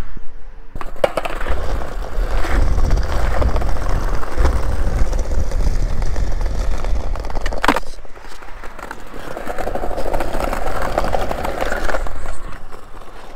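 Skateboard wheels rolling over a brick paving-stone path, a steady rumble with fast clatter from the joints between the pavers. A single sharp crack comes a little past halfway.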